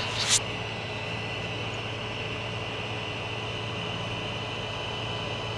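Steady whir of a Creality CR-10S 3D printer's cooling fans, with a constant high whine and a low hum. A short noise just after the start.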